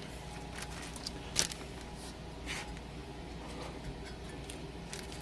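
Hands handling a small speaker mid-woofer on a workbench: a few brief soft knocks and rustles, the sharpest about a second and a half in, over a faint steady low hum.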